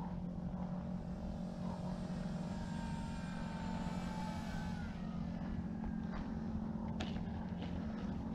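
Electric RC model airplane's motor and propeller whine as it flies past, faint, the pitch sliding slowly down about two to five seconds in, over a steady low hum.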